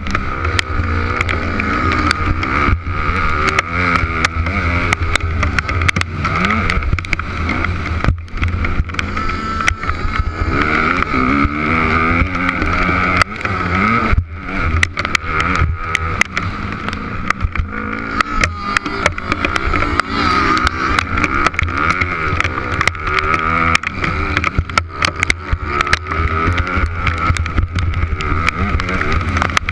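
Motocross dirt bike engine, heard from the rider's helmet camera, revving up and down again and again as the bike is ridden hard around the track. Wind rushes steadily over the microphone, and frequent sharp ticks strike the camera throughout.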